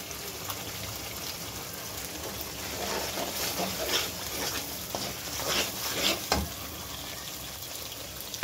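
Masala frying in oil in a nonstick pan, sizzling steadily as cream is squeezed from a carton into it. A few short scrapes of a metal slotted spoon stirring the mix come in the middle.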